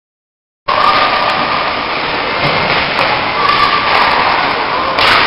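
Dead silence, then less than a second in the sound cuts in abruptly to loud, even ice-rink game noise picked up by a camcorder microphone: a steady rushing hiss with a faint tone and a few light knocks.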